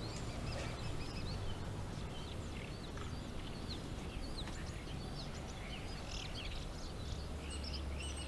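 Small birds chirping and twittering, many short quick notes, over a steady low rumble.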